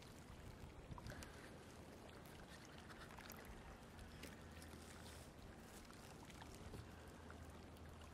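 Near silence: faint outdoor ambience with a steady low hum and a few soft ticks.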